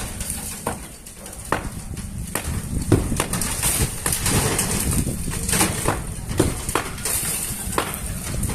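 Irregular heavy blows, about one to two a second, striking a wall being knocked down by hand during demolition, over a steady low rumble.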